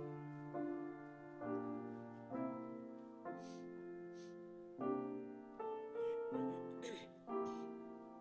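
Piano playing a slow run of chords, each struck and left to ring and fade before the next, about one a second.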